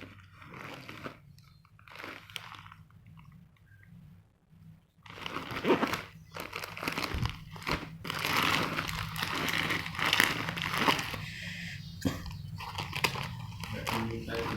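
Packaging crinkling and rustling as a parcel is unwrapped by hand, with sharp crackles. Faint and patchy at first, louder and busier from about five seconds in.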